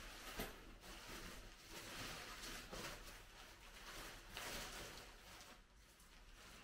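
Faint, on-and-off rustling of tent fabric as a Tarptent Scarp 1 is unfolded and handled by hand.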